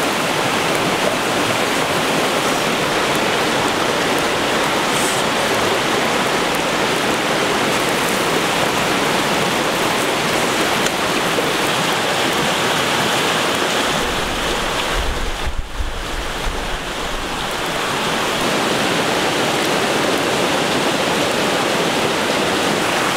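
Steady rushing of a stream, an even wash of water noise, with a brief low rumble about two-thirds of the way through.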